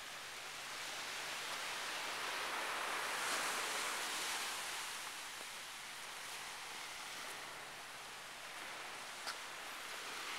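Small ocean waves washing onto the beach: a steady hiss that swells a few seconds in and then eases. A single short click comes near the end.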